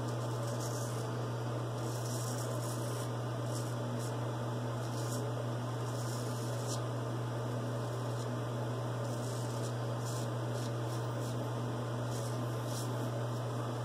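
Steady low hum throughout, with short, scratchy scrapes of a straight razor cutting lathered stubble on the jaw and neck, coming every second or so at irregular intervals.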